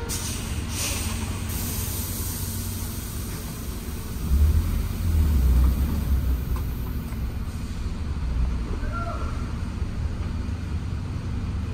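Steady low rumble of a vehicle, with a short hiss near the start and a louder swell of the rumble about four seconds in that lasts a couple of seconds.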